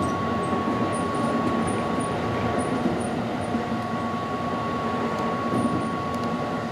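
Keihan 5000 series electric commuter train running, heard from inside the car: a steady rumble of wheels and running gear with a constant high-pitched tone.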